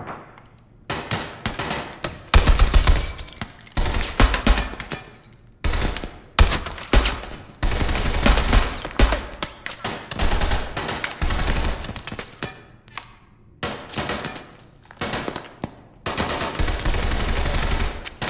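Automatic gunfire in repeated rapid bursts, starting about a second in, with short breaks between the bursts.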